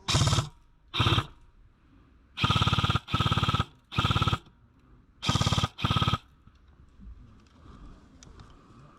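Airsoft gun firing in rapid automatic bursts, seven short bursts in the first six seconds, the longest about a second.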